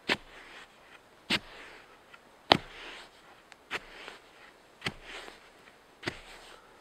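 Pointed wooden stick stabbed repeatedly into the ash and earth of a fire pit: six sharp thuds about a second apart, each followed by a brief crumbling rustle of loosened soil and ash.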